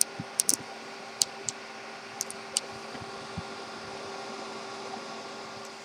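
Steady fan hum with a faint whine in it, and a few light clicks and taps in the first few seconds.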